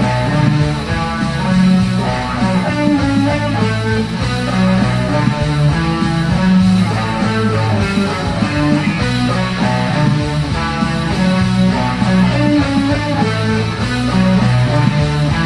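Electric guitar playing a busy rock riff of quickly picked notes without a break.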